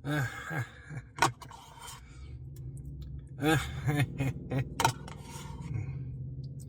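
A man's mumbled rhythmic nonsense syllables and humming, with a spoon scraping and clicking in a cup of Blizzard ice cream.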